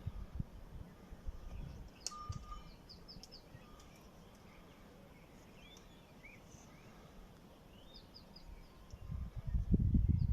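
Small birds chirping and twittering, short high calls repeated in quick runs. Near the end a loud low rumbling noise comes in and covers them.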